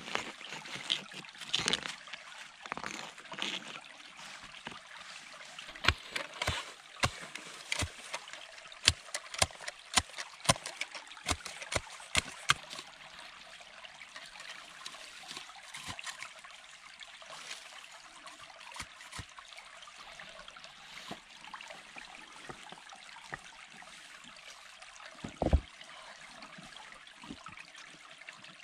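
Steady trickle and rush of running water, with handling noises over it: a dense run of sharp clicks and knocks for several seconds in the first half as soil and stones are worked by hand, and a single heavy thump near the end.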